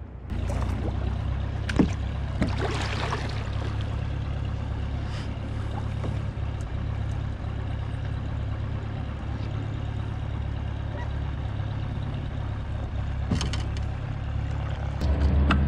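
An engine drones steadily and low across the open water, broken by a few sharp knocks. Near the end the drone gets louder.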